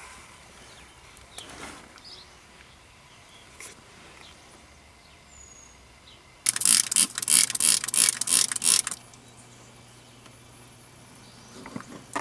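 Ratchet wrench clicking rapidly for about two and a half seconds in the middle, with a shorter burst of ratcheting near the end and a few faint tool clinks before.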